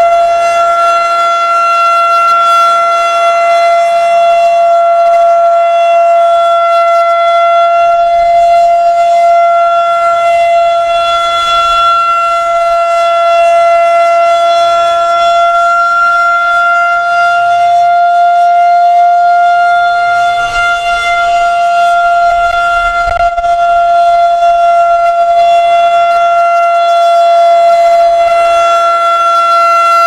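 Federal Signal 2001-130 rotating electromechanical outdoor warning siren sounding a loud, steady single-pitch tone for a scheduled siren test, while its horn slowly turns on the pole.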